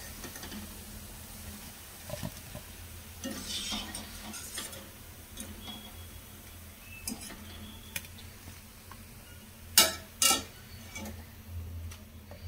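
Wire spider strainer scraping and clinking against a kadai as fried balls are lifted out of hot oil, with a light sizzle. There are two sharp clinks about ten seconds in, over a low steady hum.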